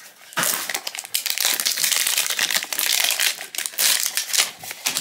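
Crinkling of a foil blind-bag wrapper as it is handled and pulled out of a plastic blind-box cube. It starts about half a second in and goes on as a dense, crackly rustle.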